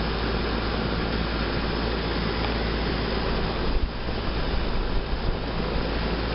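Carrier straight-cool central air conditioner condensing unit running: a steady rush of air from its condenser fan over the low hum of its compressor.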